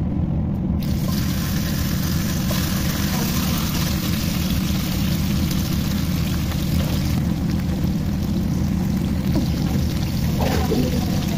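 Chicken legs sizzling as they fry in hot oil in a pan, over a steady low rumble. The sizzle gets brighter about a second in, and near the end a wooden spatula moves the pieces in the pan.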